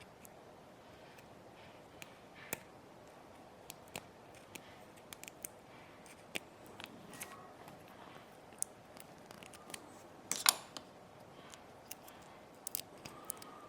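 Irregular small sharp clicks and taps of tiny repair tools and parts being handled during an iPod nano teardown, with a louder clatter about ten seconds in, over a steady low hiss.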